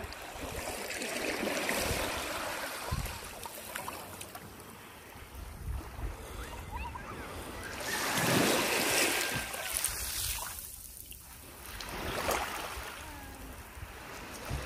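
Small waves breaking and washing in the shallows right at the microphone, the loudest wash about eight seconds in, with quieter swells near the start and near the end.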